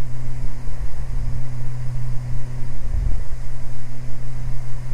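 Cabin drone of a Beechcraft Baron G58 in flight: its twin Continental IO-550 six-cylinder engines and propellers hum steadily at one low pitch.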